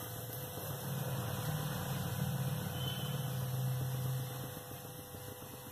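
A low, steady mechanical hum that fades out about four and a half seconds in.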